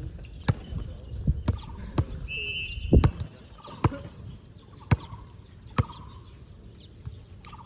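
A ball striking the hard court floor and players' hands about eight times at uneven intervals, with short sneaker squeaks on the floor in between.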